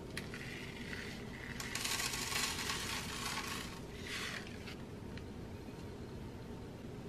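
Fine white sand shaken from a small plastic packet onto a paper plate: a grainy hiss and patter mixed with the crinkle of the packet. It grows louder about two seconds in and fades out about five seconds in.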